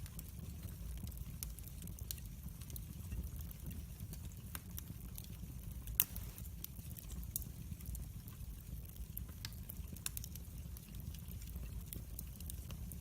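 Wood fire burning in a fireplace: a steady low rumble of the flames with scattered sharp crackles and pops, one louder snap about six seconds in.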